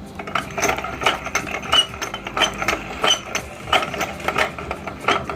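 Meat grinder working marbles through its auger: irregular sharp clacks, about two or three a second, each with a short ringing note.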